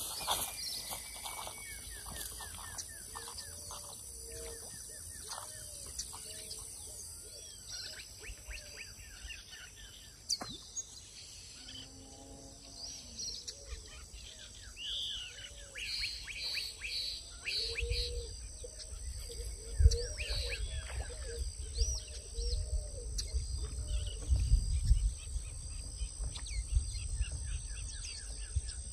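Birds chirping and calling with many short repeated notes, over a steady high insect buzz. Low rumbles and a single thump come in the second half.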